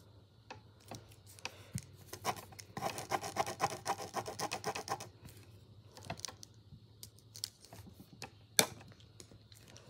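Mechanical pencil scribbling quickly back and forth on paper over a clipboard, a run of rapid scratching strokes lasting about two seconds in the middle, amid small handling taps, with one sharp tap near the end.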